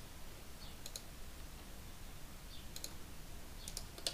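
A few sharp clicks of a computer mouse and keyboard, some in quick pairs, over a faint low hum.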